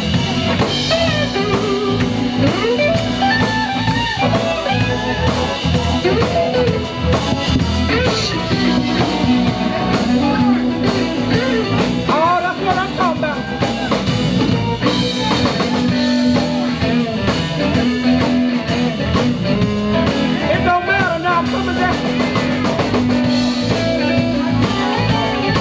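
Live blues band playing, with a drum kit, electric bass and Roland VK-8 organ. A guitar or voice line bends up and down in pitch over a steady, repeating bass note.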